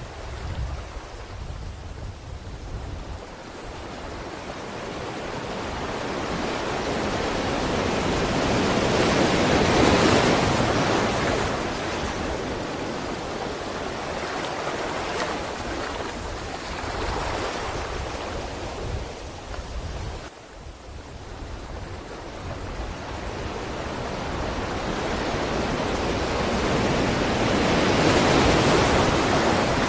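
Ocean waves breaking and washing on a shore: slow swells of surf, building to loud crests about a third of the way in and again near the end, with a brief lull in between.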